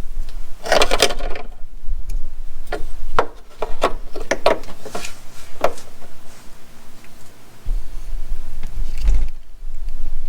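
Close handling noise: a rubbing scrape about half a second in, then a string of sharp clicks and taps, over a low wind rumble on the microphone that grows near the end.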